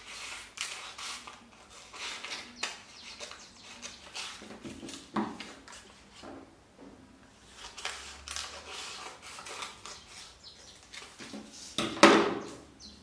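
Paper pattern rustling and crackling as it is handled, opened and pressed flat on a cutting mat, with a louder sharp knock about twelve seconds in.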